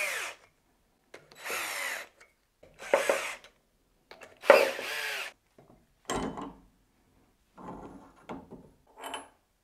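Cordless drill driving jacking bolts in three short bursts, the motor pitch bending as each starts and stops, pressing the spindle bearing housing out of a 1A616 lathe headstock. Then a metal knock and a scraping as the housing is worked loose by hand.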